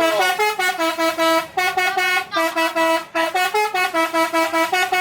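Bus telolet horn, a multi-tone air horn, playing a fast tune of short notes that step up and down in pitch. The tune breaks off briefly a few times.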